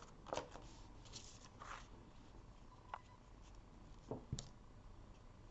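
Faint handling of paper and cardstock: a few soft rustles and light taps, with two sharper taps about four seconds in.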